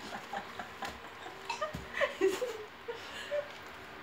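A dog whimpering: a string of short, high whines and squeaks, some sliding down in pitch, fairly soft.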